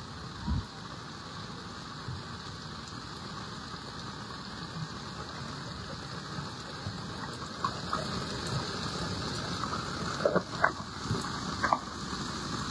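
Steady hiss of water in a flood, with a short thud about half a second in and a few sharp knocks or splashes near the end.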